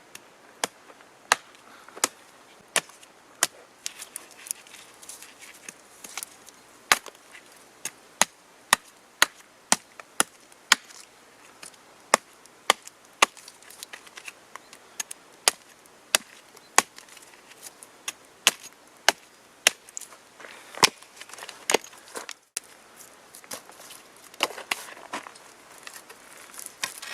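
Wood being chopped or split by hand, a long run of sharp, dry chops, sometimes coming in quick runs about half a second apart, typical of preparing kindling for a campfire.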